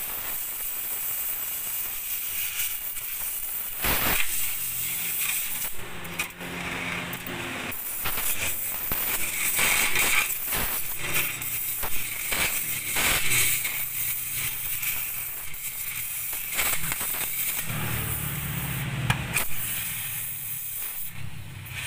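Electric arc welding on a steel chassis rail: steady crackling and hissing of the arc, broken by frequent sharp pops, while a steel patch plate is welded over rusted-through chassis. A low hum swells briefly near the end.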